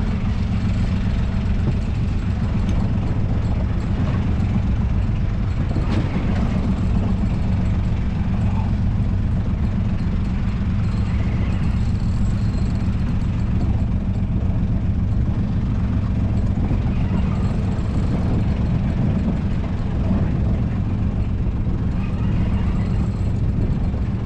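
A boat's engine running steadily at an even, unchanging speed, a constant low hum.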